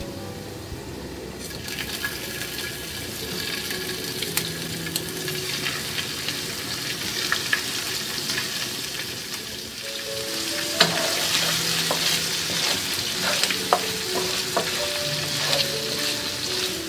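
Prawns and chopped garlic sizzling in hot olive oil in a frying pan. The sizzle builds from about a second and a half in as the prawns go in. A utensil clacks against the pan a few times in the second half as they are turned.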